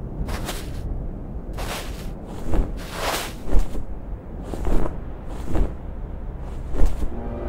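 Film sound effects: a steady low rumble under six short hissing bursts, spaced about a second apart and irregular.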